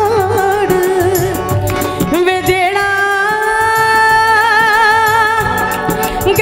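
A woman singing live into a microphone with harmonium accompaniment, her voice rich in quick wavering ornaments. About two and a half seconds in she settles into one long held note, ornamented, that lasts almost to the end.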